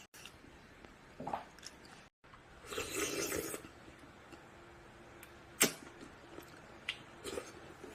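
Close-up eating sounds at a meal of noodle soup. About three seconds in there is a second-long noisy stretch of eating, and a little after five and a half seconds a single sharp click, with a few fainter clicks around it.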